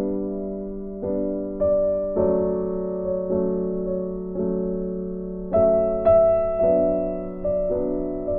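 Slow piano music with notes and chords struck about once a second, each ringing and fading away.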